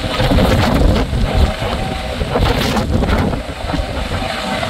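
Hovering helicopter heard through heavy wind buffeting on the microphone: a steady low rumble with gusts that rise and fall.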